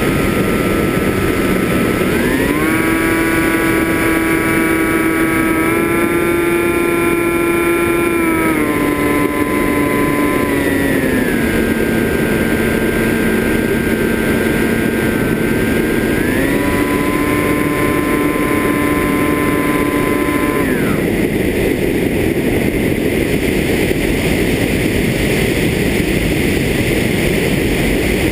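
FPV drone's motors whining over a loud rush of wind and propeller wash. The whine holds level pitches and steps up and down with throttle several times, then drops away about 21 seconds in, leaving only the rushing air.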